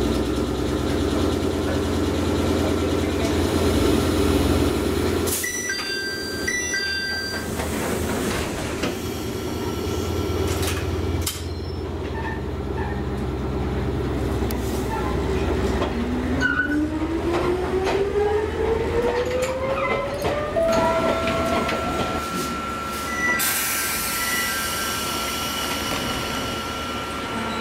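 Interior of an old Ichibata 3000 series (ex-Nankai 21000) electric train: a steady low hum while it stands at the platform, then short electronic tones beeping a few times about six seconds in. Later the train pulls away, its traction motor whine rising steadily in pitch for several seconds as it accelerates.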